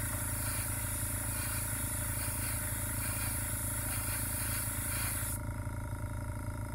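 Airbrush hissing as it sprays paint, cutting off sharply about five seconds in, over the steady low hum of a small air compressor running.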